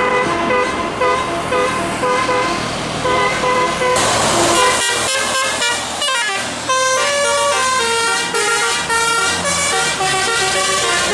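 A bus's multi-note musical air horn (telolet) plays tunes over the low rumble of its engine. Short repeated notes sound for the first few seconds. About four seconds in comes a burst of air hiss, and the horn then switches to a different melody with several notes sounding together.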